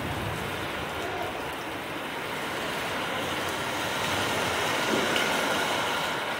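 Heavy rain pouring steadily in a strong storm, an even hiss of downpour on trees and bare ground.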